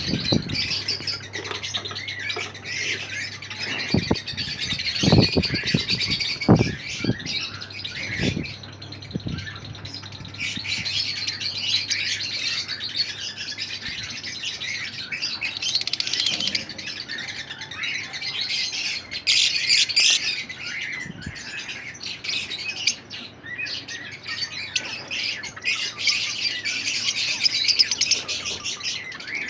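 A flock of caged lovebirds chattering and squawking without a break, with a few low thumps between about four and nine seconds in.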